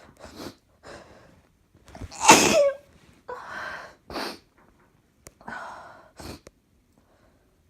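A person sneezing: a few quick breaths, then one loud, explosive sneeze a little over two seconds in, followed by several shorter breathy bursts and sniffs.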